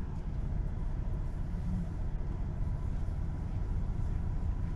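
Steady low rumble of a car driving along the road.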